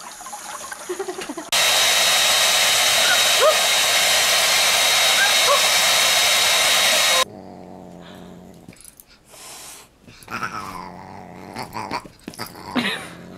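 Handheld hair dryer running: a loud, steady rush with a thin high whine, cutting in about a second and a half in and stopping abruptly about six seconds later. Before it a tap runs water briefly, and after it come quieter dog sounds.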